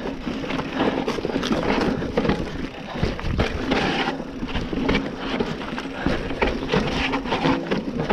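Giant Reign SX enduro mountain bike rolling slowly down a rocky dirt trail: tyres running over dirt and stones, with frequent clicks and knocks as the bike rattles over the bumps.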